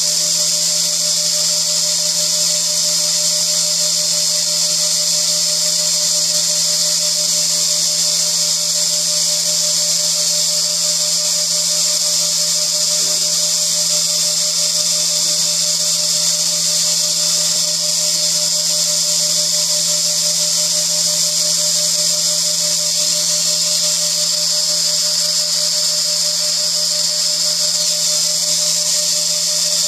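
Small high-speed engraving spindle running steadily with a high whine and a low hum under it, while its fine cutter engraves graduation lines into an aluminium lathe dial.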